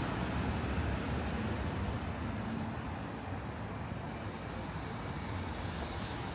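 City traffic: a steady low rumble of vehicle engines and road noise, easing off slightly over the first few seconds.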